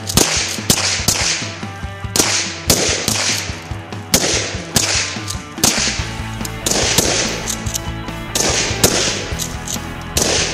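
Background music with frequent hard drum hits over sustained bass notes.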